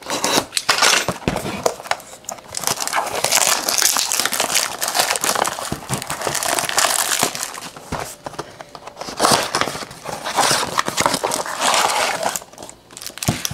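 Plastic wrapping crinkling and being torn and crumpled by hand, in several stretches with scattered clicks, as a retail blaster box of trading cards is unwrapped and opened.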